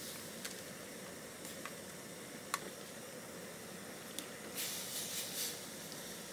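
Doenjang jjigae simmering in an earthenware pot over a gas burner: a steady hiss with a few light clicks, the sharpest about two and a half seconds in. Near the end comes a cluster of louder wet noises as tofu is stirred in with a wooden spatula.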